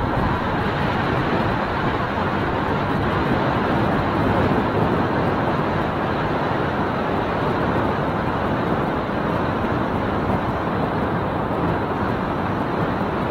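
Small motorcycle being ridden at a steady pace: the engine running under a constant rush of wind and road noise.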